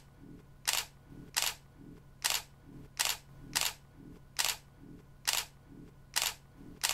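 A run of about nine short, sharp clicks, spaced a little under a second apart, over a faint steady hum.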